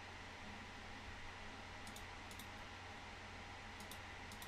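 Faint computer mouse clicks in quick pairs, about two seconds in and again near the end, over a steady low room hum.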